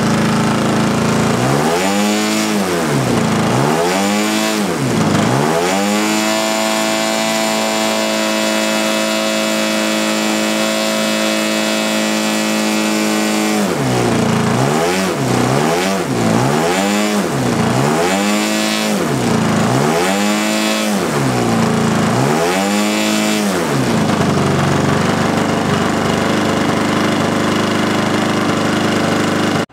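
Titan 62 cc two-stroke gasoline engine of a giant-scale RC aerobatic plane on a ground test run, turning its propeller. The throttle is blipped up and down about once a second, held at high revs for several seconds in the middle, blipped again, and near the end drops to a steady idle.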